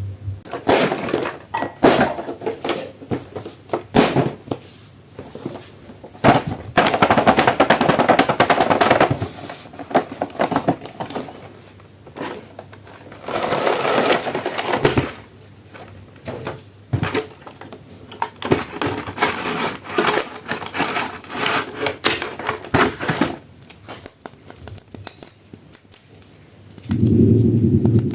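Plastic toy packaging crinkling and rustling as it is opened, with rapid clicks and knocks of hard plastic being handled, in irregular bursts.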